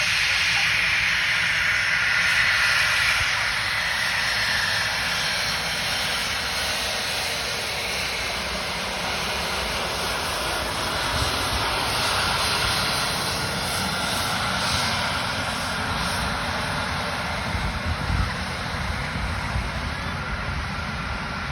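Private jet's engines running as the jet taxis, a steady, loud jet noise. It is brightest and most hissing in the first few seconds, then evens out.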